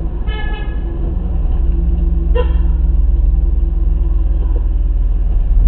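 A car horn toots once for just under a second, with a much shorter pitched blip about two seconds later, over the steady low hum of the BMW E30's 2.0-litre M50B20 inline-six engine, heard from inside the cabin.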